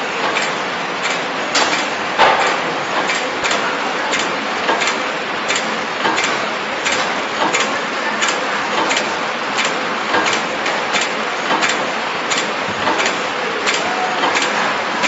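Horizontal flow wrap machine running: a steady mechanical whir with a sharp, regular clack about every two-thirds of a second as it cycles through packs.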